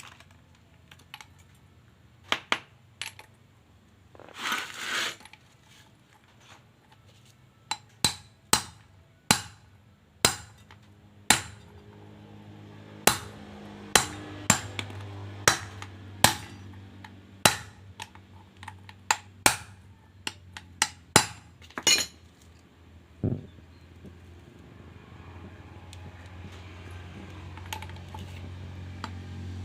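A hammer striking the metal parts of a brush cutter's gear head: a run of sharp, ringing blows, roughly one a second, with a short scraping rasp about four seconds in.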